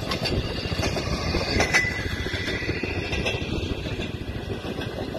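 Railroad motorcars (speeders) running past on the track, their small engines running and steel wheels rolling on the rails. There are a few sharp clicks, with a short high metallic squeal about a second and a half in.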